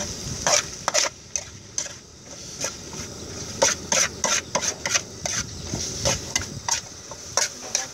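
Metal spatula scraping and clanking against a steel wok as noodles and bean sprouts are stir-fried, in irregular strokes over a steady sizzle.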